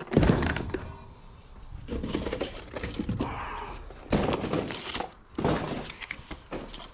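Metal knocks, clicks and short scrapes from a stainless steel tool roll cabinet being handled as a drawer or door is opened, with several louder bangs.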